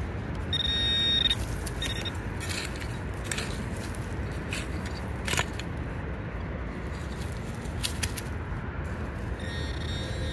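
A handheld metal-detecting pinpointer buzzing with a high tone as it is held to a target in the dirt, about half a second in and again near the end. Between the buzzes come scattered clicks and scrapes of gravel being dug, over a steady low background rumble.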